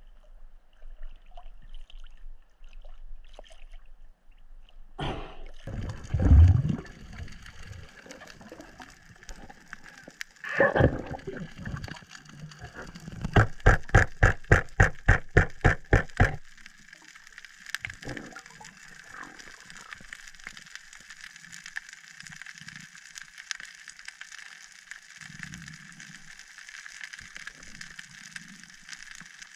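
Water sounds of a spearfisher at the sea surface and diving: splashing and gurgling with a heavy thump about six seconds in and another loud burst a few seconds later. Then a quick run of about fifteen even knocks lasting some three seconds, followed by a steady underwater hiss with faint crackling.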